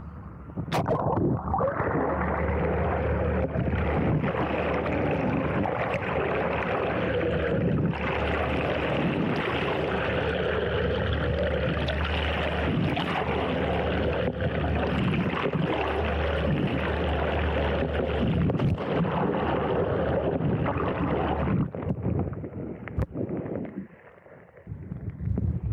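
Underwater sound from a camera held below the surface beside a moving motorboat: a dense rush of water over a steady low hum of the boat's motor and propeller. About 21 seconds in, the camera leaves the water and the sound drops to quieter wind and splashing.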